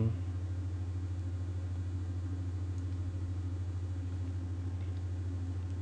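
A steady low hum with no other sounds standing out.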